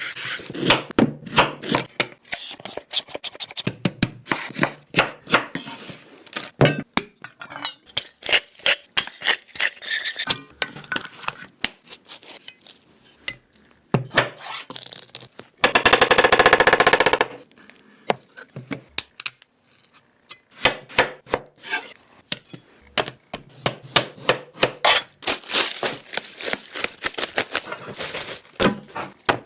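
Kitchen food-prep sounds: a knife chopping on a cutting board and utensils knocking and clattering in quick irregular strikes. A loud buzz lasts about a second and a half just past the middle, then the chopping and clatter carry on.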